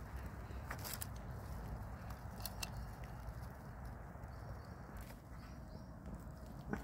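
Outdoor ambience: a steady low rumble with a few short sharp clicks, and faint bird chirps about two thirds of the way through.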